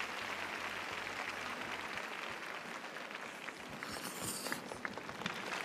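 Arena crowd applauding steadily, with a brief high hiss about four seconds in.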